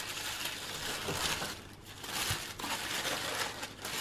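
Tissue paper rustling and crinkling as hands unfold it, the rustle rising and falling several times.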